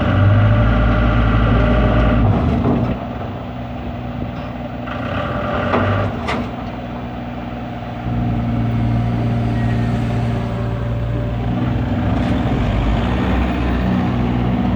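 Excavator's diesel engine working, heavy under load for the first two and a half seconds and again briefly near six seconds, each time with a high whine over the engine, easing off in between. There is a sharp knock at about six seconds, and from about eight seconds the engine runs steadily at a higher level.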